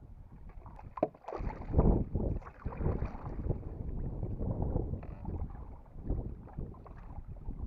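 Wind buffeting the microphone in uneven low gusts, with water sloshing around a canoe on open water and a couple of sharp knocks about a second in.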